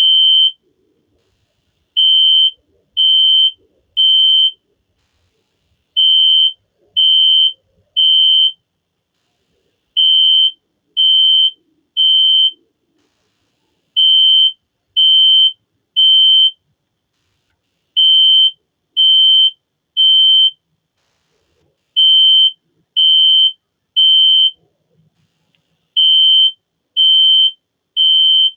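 System Sensor SpectrAlert Classic P1224MC fire alarm horn sounding in the temporal-three pattern: three loud, high-pitched half-second beeps, a short pause, then again, every four seconds. This is the standard fire evacuation signal.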